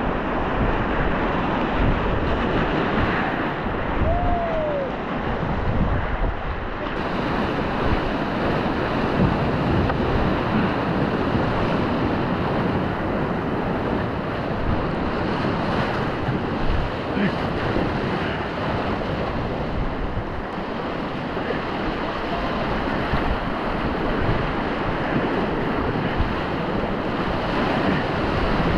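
Rushing whitewater of a river rapid in high flood flow: a steady roar of churning, splashing water all around a packraft as it runs the rapid.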